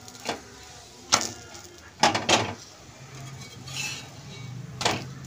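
Steel spatula on an iron tawa while a paratha cooks: about five sharp clinks and knocks, two of them close together about two seconds in, over a faint steady background.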